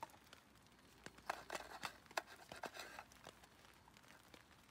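Knife and spoon clicking and scraping against a metal mess tin while cutting steak. A run of faint, short clicks and scrapes about a second in, dying away after about three and a half seconds.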